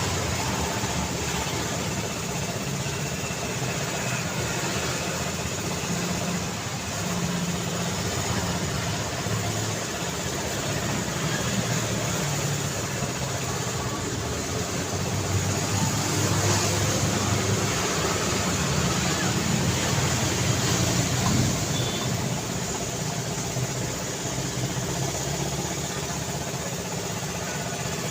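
Busy street traffic: cars and motorbikes running and passing in a steady wash of engine and tyre noise, swelling a little past the middle.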